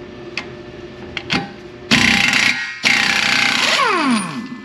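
Impact wrench hammering on a Subaru Outback's rear axle nut through a 1 1/4 inch socket, in two bursts starting about two seconds in; the second burst ends in a falling whine as the tool spins down, with the nut coming off.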